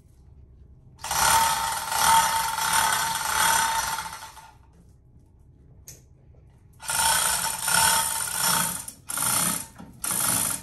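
Manual chain hoist being worked by hand: the chain rattling through the hoist with its gearing clicking. It comes in two spells of about three seconds each, the second broken into short pulls near the end.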